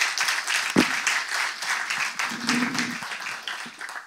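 Audience applauding, the clapping thinning out and fading near the end. A single low thump about a second in.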